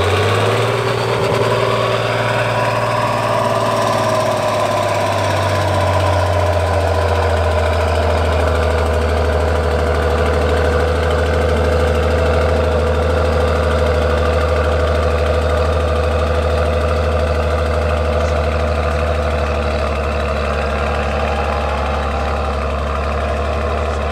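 Trial truck's diesel engine running hard and steady at heavy throttle while climbing a steep hill, a deep drone that drops slightly in pitch about five seconds in.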